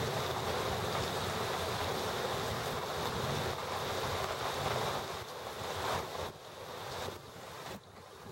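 Thunderstorm wind and heavy rain making a steady rushing noise, with wind buffeting the microphone; it eases and breaks up over the last two seconds.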